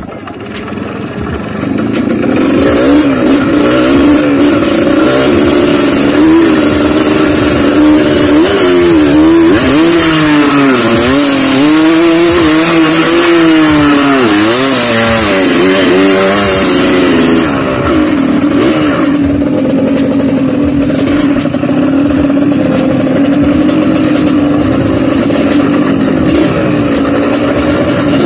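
Small trail motorcycle engine running close to the microphone as the bike is ridden, its revs climbing and dropping again and again for several seconds, then holding at a steady pitch for the second half.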